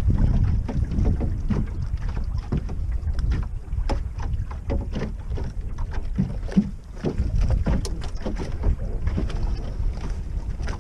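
Wind buffeting the microphone on a small wooden sailing dinghy under way, with water slapping and splashing against the hull over and over.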